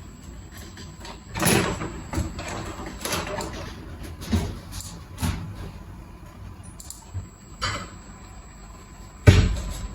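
Kitchen clatter while cooking: about seven irregular knocks and scrapes of cookware and utensils, the loudest just after nine seconds in, over a faint steady background.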